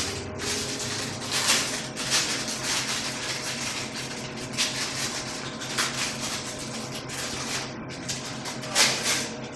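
Short rustling, crinkling noises of a small plastic bottle or pack being handled, coming about once a second, over a steady low hum.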